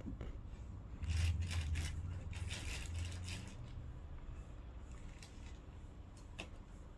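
A run of crackling, scraping clicks lasting about two and a half seconds, starting about a second in, then two single sharp clicks near the end: clicking and rubbing of plastic parts around a Midea air conditioner.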